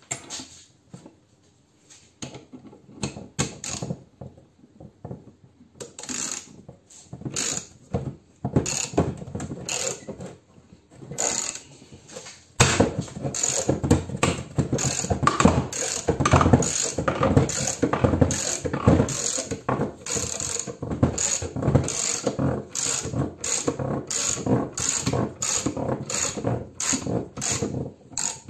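Ratchet wrench clicking in a regular rhythm as it is worked against the compressor. The clicks are sparse at first; from about halfway they come about two a second over a steadier scraping noise.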